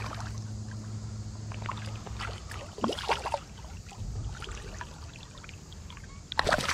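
Hooked smallmouth bass splashing and thrashing at the water's surface as it is reeled in to hand, in short bursts about three seconds in and again near the end. A low steady hum runs under the first two seconds.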